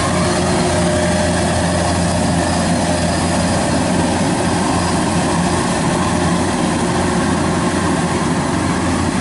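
Kubota DC-93 rice combine harvester running steadily at working speed while it harvests rice, a constant loud engine drone.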